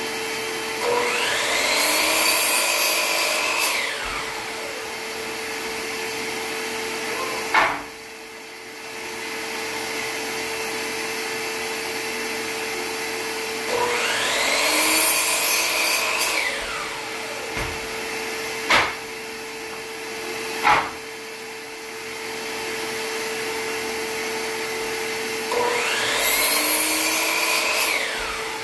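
A shop vacuum runs steadily with a constant hum. Three times a DeWalt sliding miter saw is triggered: its motor whines up in pitch through a cut in a tongue-and-groove wood board, then winds down, each time over about three seconds. A few sharp knocks fall between the cuts.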